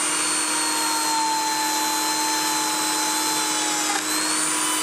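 Lamello Zeta P2 joiner running with its P-System, cutting a Clamex P-10 connector groove into solid wood: a steady high whine that sags slightly in pitch under load and rises again about four seconds in.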